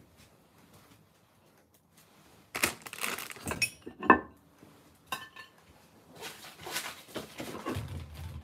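Kitchenware clattering and clinking as it is handled and set down, in bursts after a quiet first couple of seconds, with one sharp knock about four seconds in.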